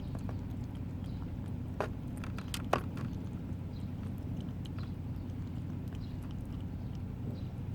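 Kittens eating, with small scattered clicks of chewing and licking that bunch together about two to three seconds in, over a steady low hum.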